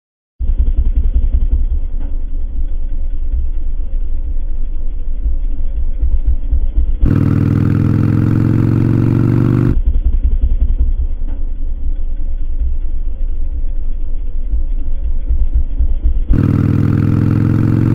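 Harley-Davidson Iron 883's air-cooled V-twin running under way as a dense, muffled low rumble. About seven seconds in, and again near the end, the engine comes through clearly, its pitch rising as the bike accelerates in gear.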